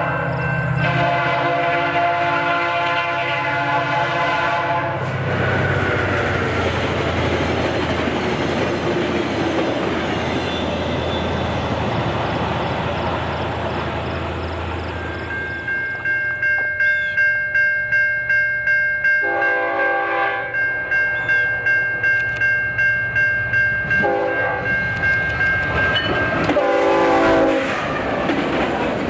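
A diesel locomotive's air horn sounds a chord for several seconds, then a train passes with a heavy rumble. About halfway through, a bell starts ringing at a steady rhythm, under short blasts of the horn.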